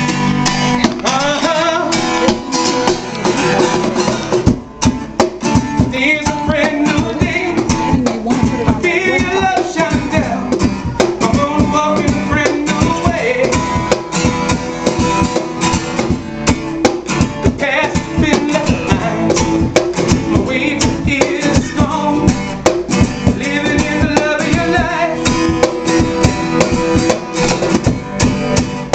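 Live acoustic band music: an acoustic guitar strummed over a steady cajon beat.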